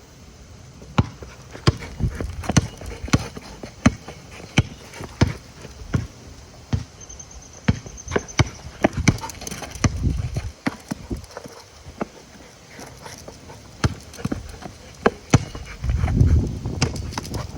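Dogs playing: an irregular run of sharp clicks and knocks, with a couple of heavier low thumps about ten seconds in and near the end.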